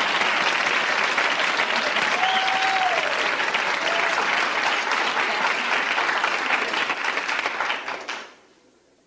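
Sitcom studio audience applauding after a monologue, a dense, steady clapping that cuts off abruptly about a second before the end.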